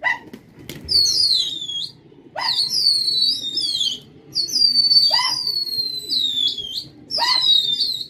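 A songbird close by singing loud, high whistled phrases about every two seconds. Each phrase opens with a quick upward note, then holds a high note that wavers and slides down.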